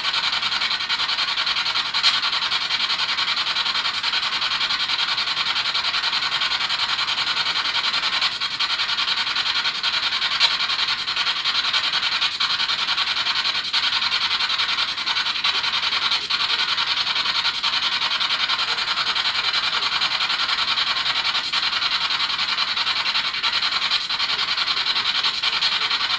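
Spirit box scanning through radio frequencies, giving a steady hiss of radio static with faint clicks every second or two as it sweeps.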